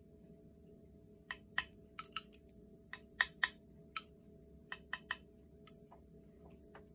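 About a dozen short, sharp, irregular clicks and taps from a small dropper bottle being handled, its dropper cap knocking against the bottle while binder is dispensed.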